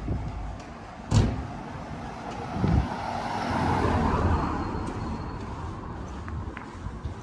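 Street sounds: a sharp knock about a second in, then a vehicle passing, its noise swelling and fading over a couple of seconds.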